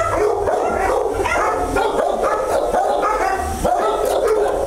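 A litter of young puppies yipping and whimpering over one another, with many short high calls overlapping without a break.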